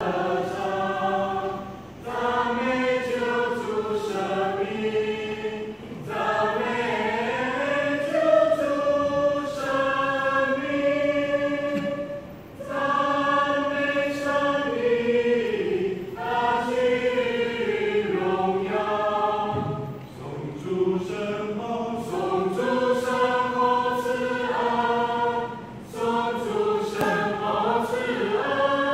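Mixed church choir of men's and women's voices singing a Chinese hymn in parts, in sung phrases separated by brief breaks.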